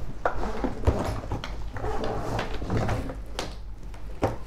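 Vehicle wiring harness being handled: its plastic connectors and ribbed conduit rustle, with a string of sharp clicks and knocks.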